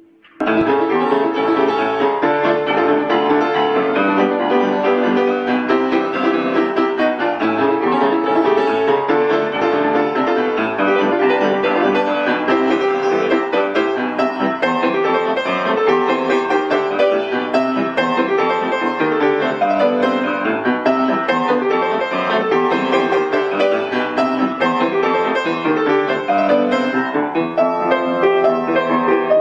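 Piano music, starting suddenly about half a second in and going on at an even, lively level.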